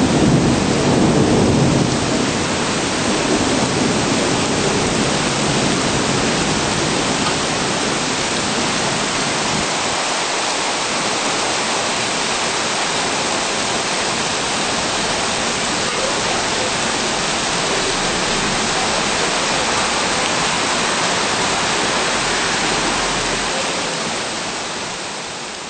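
Steady hiss of heavy rain, with a low rumble in the first couple of seconds; it fades out near the end.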